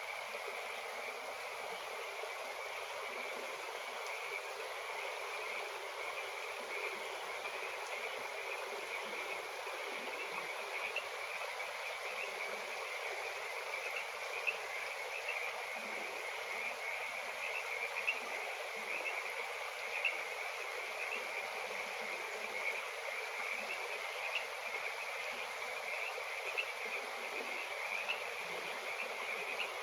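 Heavy rain falling steadily: a dense, even hiss with a brighter edge in the upper range and a sharper tap standing out now and then.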